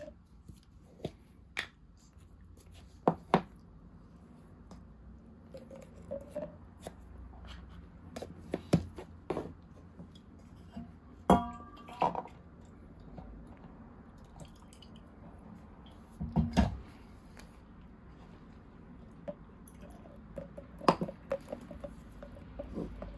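Baby kitten suckling milk from a nursing bottle: irregular wet sucking and smacking clicks, with a few sharper knocks.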